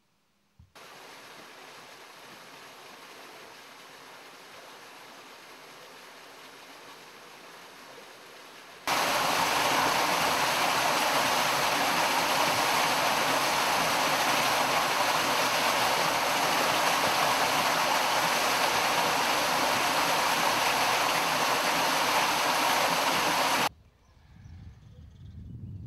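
Steady rushing water, faint at first, then loud from about nine seconds in until it cuts off abruptly near the end.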